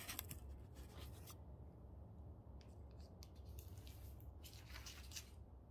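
Faint rubbing and scraping a few times as a potted plant is moved about on a tabletop, the longest scrape near the end, over a low steady hum.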